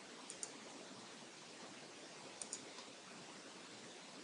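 Faint computer mouse-button clicks: a quick pair near the start and another pair about two seconds later, followed by a fainter single click, over a low steady hiss.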